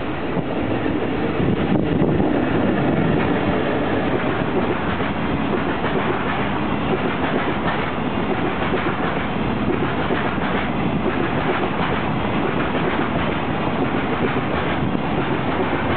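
Freight train hauled by an EF65 electric locomotive passing close by: the locomotive goes past within the first few seconds, then a long run of container flat wagons rolls by with a steady rumble and clatter of wheels on the rails.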